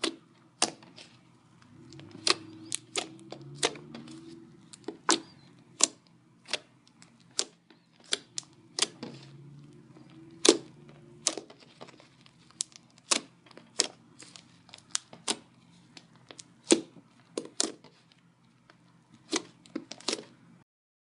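Slime being squeezed and poked, making sharp, irregular clicks and pops, one or two a second.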